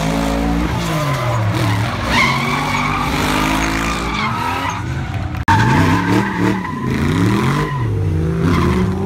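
Two drift cars, one with a Toyota 1JZ straight-six and one with a 6.3-litre AMG V8, revved hard and repeatedly rising and falling in pitch as they slide sideways, with tyres squealing. The sound drops out for an instant about halfway through, then carries on.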